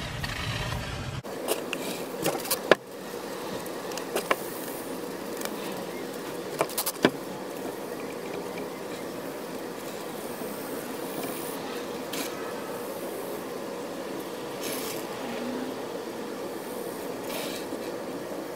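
Steady background hum with a faint steady tone, broken by a few sharp clicks, the loudest about three seconds in and again about seven seconds in.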